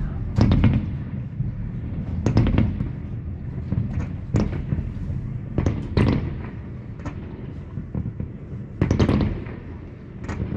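Fireworks display: shells bursting in an irregular series of sharp bangs, one to two seconds apart, over a constant low rumble, with a tight cluster of bangs about nine seconds in.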